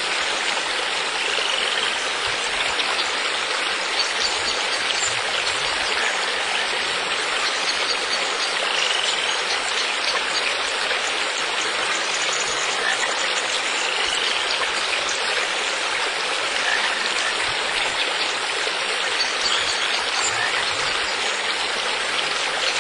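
Steady rushing, splashing water like a stream or pool water feature running, with a few faint short rising chirps every several seconds.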